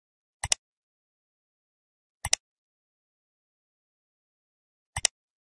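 Computer mouse-click sound effect, heard three times, each a quick pair of clicks, with silence in between.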